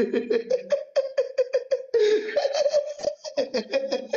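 A man laughing hard in a rapid string of short, high-pitched 'ha-ha' bursts, breaking off briefly about three seconds in.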